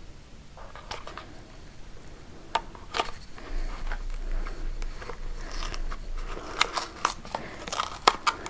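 A small package being worked open by hand: scattered sharp clicks, snaps and rustling of packaging, coming thicker in the second half.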